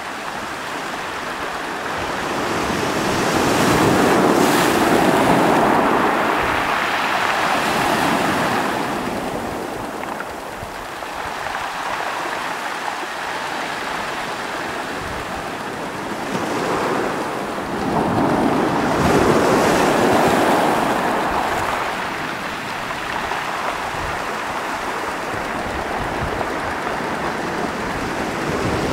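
Small waves breaking and washing up a pebble beach, the surf rising and falling in long surges, loudest twice.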